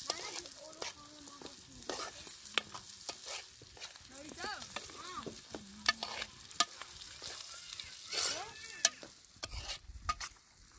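A metal spoon scrapes and clinks against a frying pan as food is stirred, with the oil sizzling underneath.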